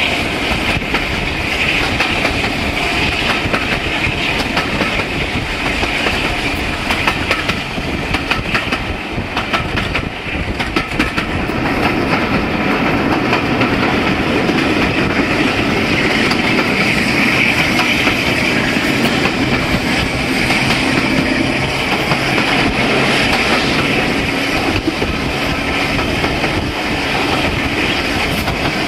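Class 52 'Western' diesel-hydraulic D1013's twin Maybach engines working under power, heard from an open window of the train it is hauling, with a steady loud rumble and wheels clicking over the rail joints.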